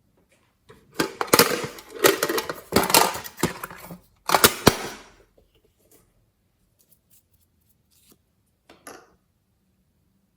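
Glossy slime squeezed and worked by hand, making a dense run of sticky crackles and pops for about four seconds, then a few faint clicks.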